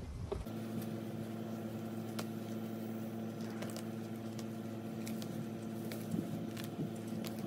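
Weeds being pulled by hand from a raised garden bed: rustling foliage with scattered sharp snaps and ticks. Under it runs a steady low machine hum.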